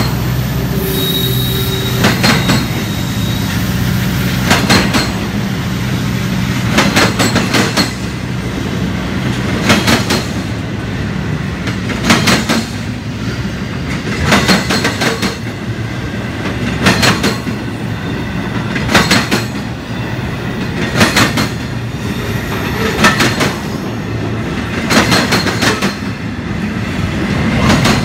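Empty double-stack intermodal well cars of a Union Pacific freight train rolling past. Their wheels clack over the track in groups about every two seconds as each car's trucks pass, over a steady rumble, with a brief thin wheel squeal near the start.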